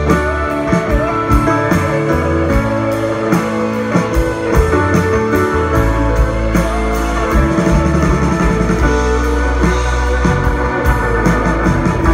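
Live rock band playing: electric guitars, bass and organ over a steady drum beat.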